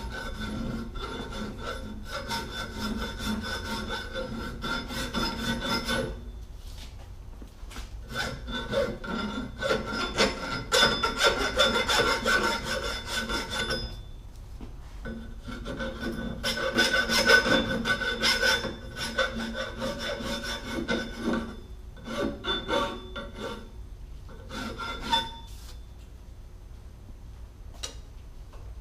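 Hand file rasping across the cut end of 2" x 2" x 3/16" square metal tubing to deburr it, in rapid strokes. It comes in three long bouts with short pauses between, then a few shorter bouts.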